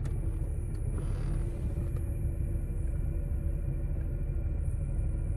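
A long, hard draw on a Fryd disposable vape cart: a faint high hiss of air pulled through the device, which has to be inhaled hard to fire. It sits over a steady low rumble.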